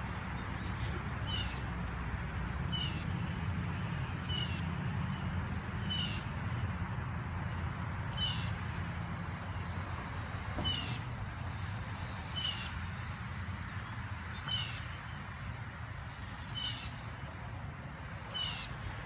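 A bird calling over and over, a short harsh call about every one and a half to two seconds, about ten times, over a steady low hum.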